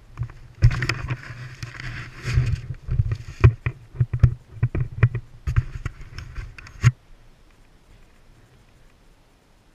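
Knocks, thumps and rustling on an action camera's microphone as the camera is jostled and moved, with wind noise in the first couple of seconds; it all stops suddenly about seven seconds in, leaving only faint background.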